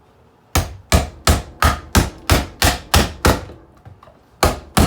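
Rapid sharp blows striking the alarm clock's screen, about three a second, nine in a row, then a short pause and two more near the end, breaking it into small pieces of glass.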